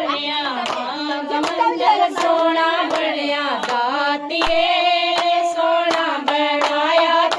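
Voices singing a devotional Punjabi/Hindi song to the goddess (a Mata bhajan), with steady rhythmic hand clapping keeping the beat.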